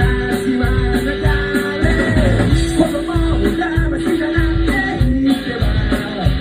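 Rock band playing live, with drums keeping a steady beat under sustained bass notes and melodic lines.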